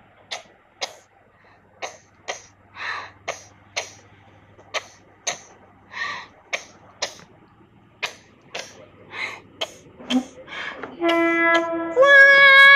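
A FEVE series 1600 diesel railcar standing with a low steady hum while a string of short hissing puffs comes at irregular spacing. Near the end its horn sounds, first a lower held note, then a louder, higher held note.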